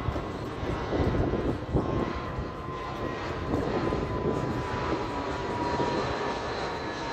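Jet engines of an Airbus A319 airliner flying overhead: a steady rushing roar with a thin whine that slowly falls in pitch as the plane passes.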